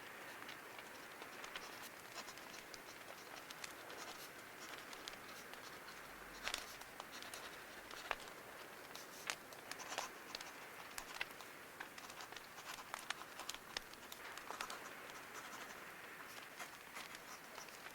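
Quiet paper handling and rustling over a bonfire ambience: a steady soft hiss with irregular sharp crackles and snaps.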